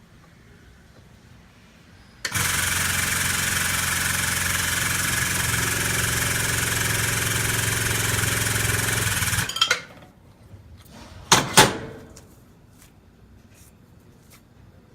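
A workshop machine's motor runs steadily for about seven seconds with a low hum and a wide hiss, starting and stopping abruptly. Two sharp knocks follow about two seconds later. This is during the fitting of a new pulley bearing in the air-conditioning compressor clutch.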